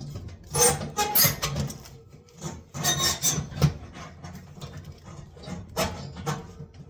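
Scraping and rubbing of a part being slid back into place inside the oven's side, in three short bouts.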